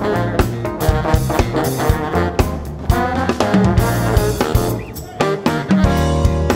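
Live jazz band with saxophone and trombone playing lines over a busy drum kit, backed by electric bass and Fender Rhodes. Near the end the horns hold a long chord.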